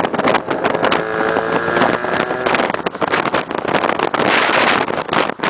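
Car engine running while driving, with wind buffeting the microphone in an uneven rush.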